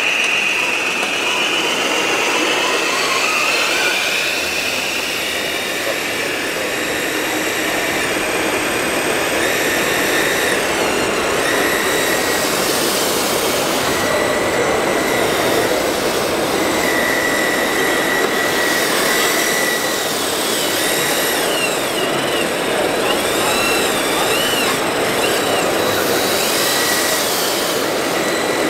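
Whine of a scale RC wheel loader's electric motors and hydraulic pump, wavering and gliding up and down in pitch as it works, over a steady mechanical din.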